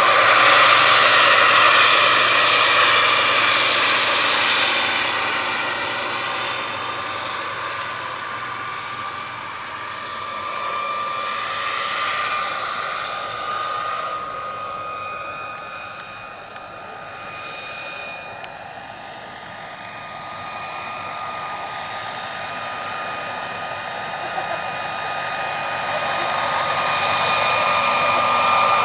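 Turbine-powered RC scale model EC135 helicopter in flight: a steady high turbine whine with rotor noise. Loud as it passes close at first, it fades as the helicopter flies off into the distance about halfway through, then grows louder again as it returns near the end.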